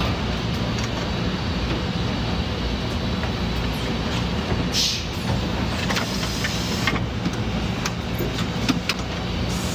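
Automated supercapacitor cell-assembly machine running: a steady mechanical hum with scattered clicks and clacks from its moving parts, and a short hiss about five seconds in.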